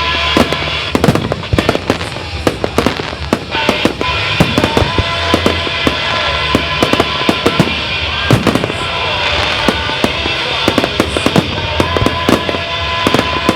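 Display fireworks going off in rapid, irregular bangs and crackles, with music playing along continuously underneath.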